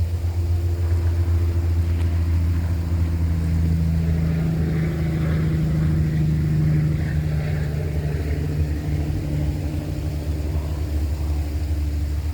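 Steady low drone of a running engine or machinery, holding a few tones that drift slightly in pitch.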